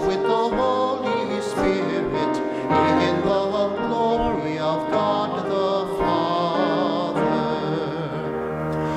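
Sung church music during Mass: voices holding and changing notes with vibrato over instrumental accompaniment.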